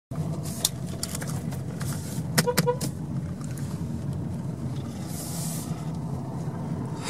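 Car engine and road noise heard from inside the cabin of a slowly moving car: a steady low rumble with a few light clicks. About two and a half seconds in come two very short, quick toots of a car horn.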